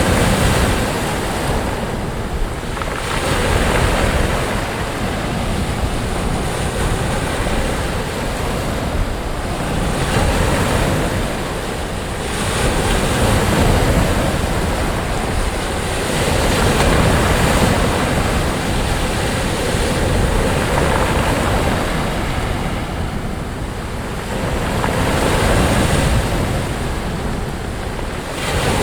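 Sea waves breaking and washing up onto a sandy beach: a continuous surf noise that swells and eases as each wave comes in, a few seconds apart.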